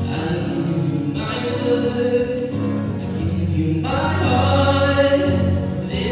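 Live ballad performance: male voices singing sung phrases with long held notes, accompanied by acoustic guitar.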